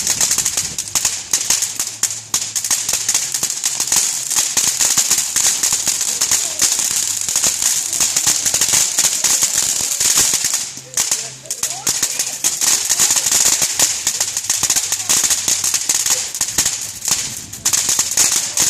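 Bonfire crackling and popping, a dense, unbroken run of sharp snaps over a steady hiss, easing briefly about 11 seconds in.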